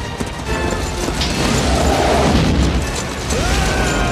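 Film sound effect of an avalanche: a deep, continuous rumble of snow crashing down the mountain, under the film's music.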